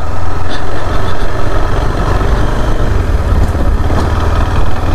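KTM 390 Adventure's single-cylinder engine running steadily on the move, a loud, even low rumble.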